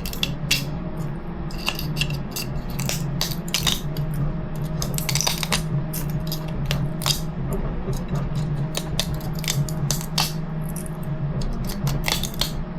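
Hard 3D-printed plastic rims and paddle tires being handled and fitted together: frequent irregular light clicks, taps and scrapes over a steady low hum.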